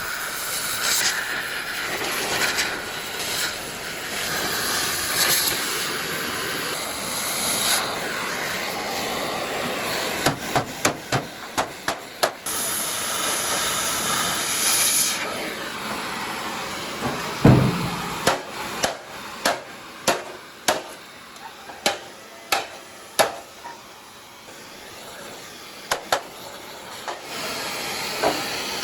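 Workshop tool noise: a steady hiss, like compressed air or a spray, for about the first fifteen seconds, then a series of sharp taps and knocks on metal or wood, with one heavy thump partway through.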